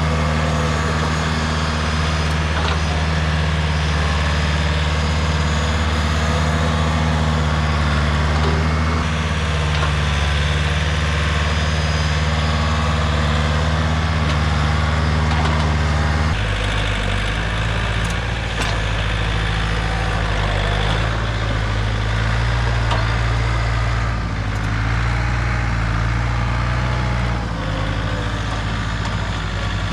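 Heavy equipment engine running steadily under work; about halfway through its note drops and changes as the throttle or load shifts.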